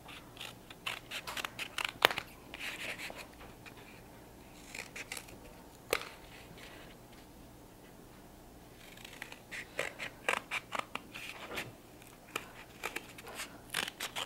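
Scissors snipping through a flattened cardboard toilet paper roll in short cuts, with a sharp click about six seconds in, a lull, then a quicker run of snips over the last five seconds.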